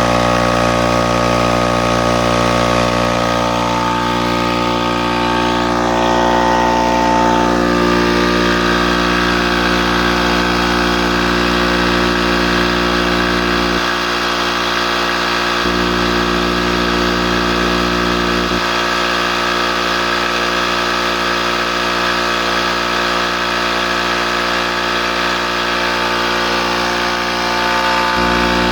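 Charge Air 5 hp, 20-gallon air compressor running steadily, its motor and pump giving a constant droning note. A deeper hum underneath fades for a couple of seconds about halfway through, then fades again until near the end.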